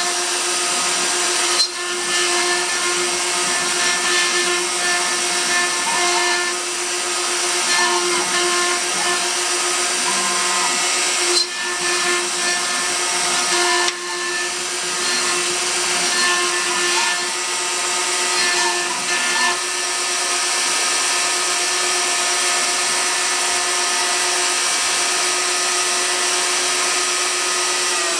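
Hobby CNC router carving: the spindle runs with a steady whine over a hiss of cutting, while the stepper motors give short, changing tones as the axes move. A few brief knocks come through, about two seconds in and twice more around the middle.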